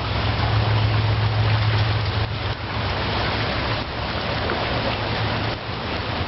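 Floodwater rushing steadily, a loud even noise with a steady low hum underneath.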